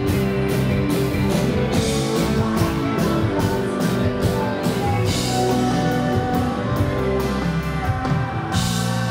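Live rock band playing loud on electric guitar, bass guitar, keytar and drum kit, with a steady drum beat. Near the end the band hits a crash and holds a sustained chord.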